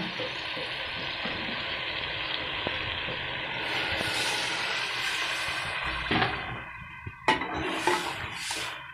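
Water added to a pot of potatoes, peas and spices fried in ghee, hissing and sizzling steadily on the hot masala, then dying down about seven seconds in. A few sharp knocks of a metal spoon stirring against the pot follow near the end.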